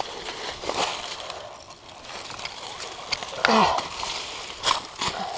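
Dry fallen leaves and loose dirt crunching and rustling under hands and feet as someone scrambles up a steep slope, with several sharp crackles. About three and a half seconds in there is a short sound that falls in pitch.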